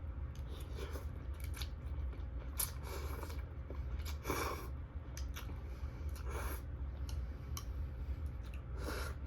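Close-miked eating of crispy fried wontons: irregular crunchy bites and chewing, with a few louder crunches spread through.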